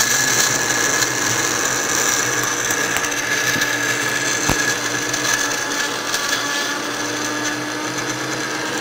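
Farberware 600-watt blender motor running steadily at full speed with a glass jar of ice cubes, failing to crush the ice.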